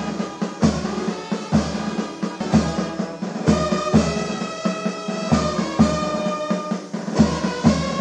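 Brass band with bass drum and snare playing a slow, steady piece, the bass drum striking about once a second under long held brass notes.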